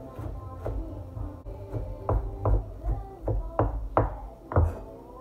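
Chef's knife chopping green onions on a wooden cutting board: a steady run of knocks, about two to three a second, growing louder about two seconds in.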